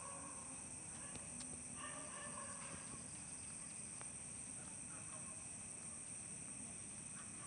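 Faint night-time outdoor ambience: a steady high insect drone, with a few faint distant calls in the first three seconds.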